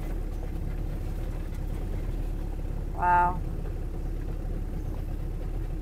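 Small motorboat's engine running at a steady, even pitch as the boat cruises along.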